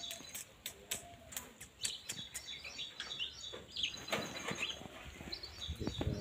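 Birds chirping over and over in short high calls, with a few light clicks in the first half.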